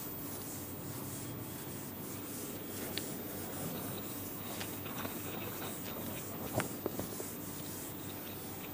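A cloth wiping a whiteboard in repeated rubbing strokes, with a few light clicks, the sharpest about two-thirds of the way in.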